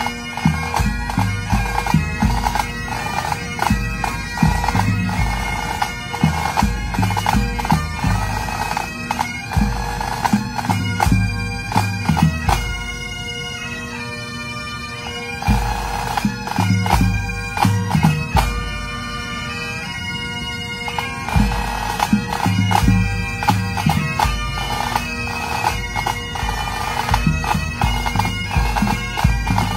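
Scottish pipe band playing: Great Highland bagpipes, chanter melody over steady drones, with snare and bass drums beating throughout. The drumming eases off briefly twice around the middle.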